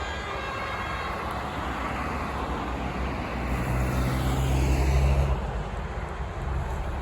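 A heavy fire engine drives past close by, its diesel engine and tyres growing louder and peaking about four to five seconds in, then fading.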